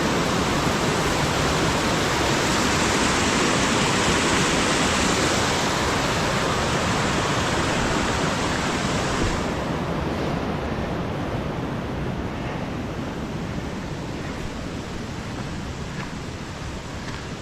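Mountain creek running high, a loud steady rush of water. About nine seconds in the hiss drops sharply and then fades, as the water falls further away.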